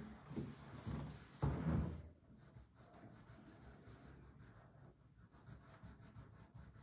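Marker scratching on paper in quick short strokes as a child colours in a shape, with a brief louder rustle about a second and a half in.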